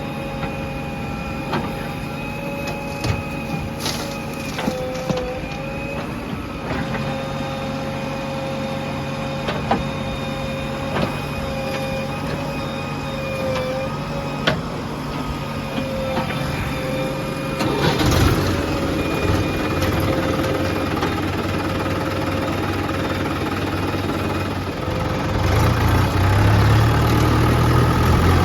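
Diesel engines of a backhoe loader and tractors working, with a steady whine that wavers slightly in pitch and scattered knocks. The engine sound grows louder about two-thirds of the way in and deepens and rises again near the end.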